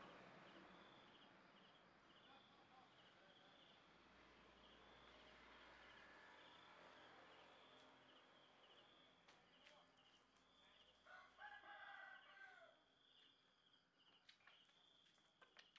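Quiet background with a faint, steady high pulsed chirping. About eleven seconds in, a rooster crows once, faintly.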